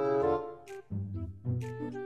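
Background instrumental music: a melody of held notes.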